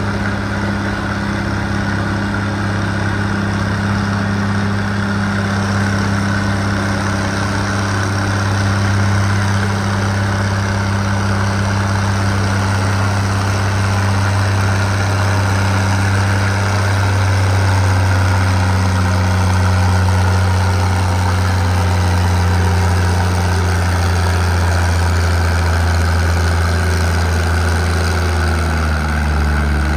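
Heavy diesel engine of a pulling vehicle running loud and steady at a held speed, its pitch sagging slightly near the end.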